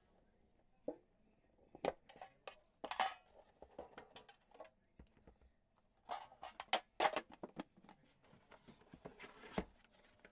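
A metal Upper Deck The Cup card tin being opened and its cards handled: scattered clicks and taps of the tin and its lid, with rustles of card stock and plastic, louder in a few short clusters.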